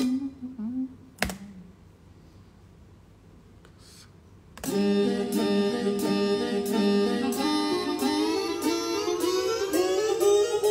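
A recorded song playing back stops; a single click comes about a second in, then about three seconds of quiet room tone. The song starts again about four and a half seconds in with a steady beat of about two a second and a melody line that rises near the end.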